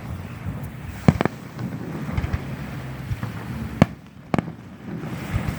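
Fireworks going off: sharp bangs, a close pair about a second in and two louder ones a little after halfway, with fainter pops between, over a steady low background noise.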